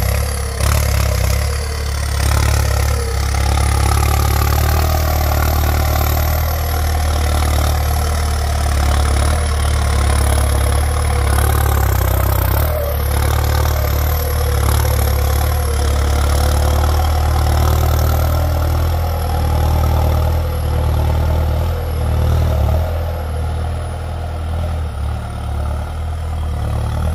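Kubota M8808 tractor's turbocharged four-cylinder diesel engine running under load as the tractor pushes soil with a front dozer blade. A steady deep engine drone is topped by a high whistle that wavers up and down throughout, the sound of the newly fitted turbo.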